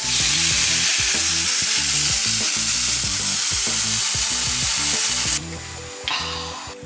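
Smoked scamorza cheese frying in a hot nonstick pan, a loud, steady sizzle that cuts off suddenly about five seconds in.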